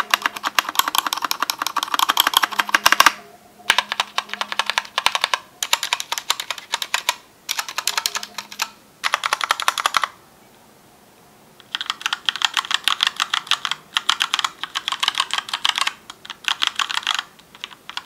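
Typing on a Keychron K2 75% mechanical keyboard with Gateron Red linear switches and ABS keycaps, held up in the hand rather than resting on a desk. Rapid keystroke clatter comes in runs of one to five seconds, separated by short pauses, with a longer break of almost two seconds around the middle.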